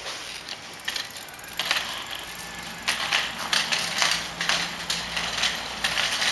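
A child's small bicycle with training wheels wheeled over concrete: the rear hub's freewheel ticking and the bike rattling in irregular bursts, more often in the second half.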